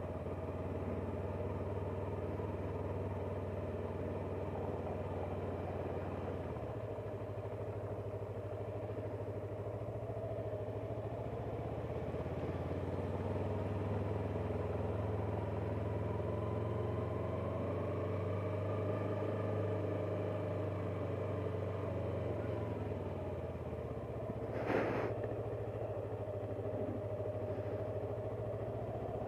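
Yamaha R3's parallel-twin engine running steadily at low speed, its pitch drifting gently up and down. A brief sharp noise cuts in about 25 seconds in.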